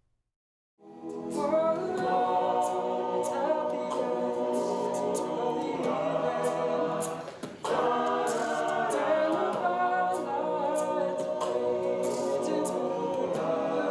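All-male a cappella group singing in close harmony, voices only. It begins about a second in and dips briefly near the middle before the singing picks up again.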